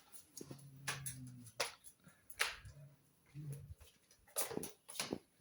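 A pet's low, faint vocal sounds: a held low note near the start and two short ones in the middle, with several sharp clicks and taps scattered through.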